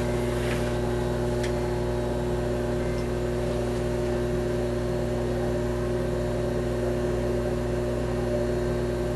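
Steady electrical hum with an even fan-like hiss, holding several low tones constant without change.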